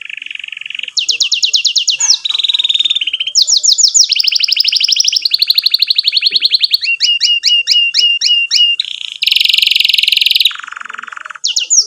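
Domestic canary singing a continuous rolling song of fast trills and repeated chirps, switching pitch and note type every second or so, with a harsh buzzy trill about nine seconds in followed by a lower roll.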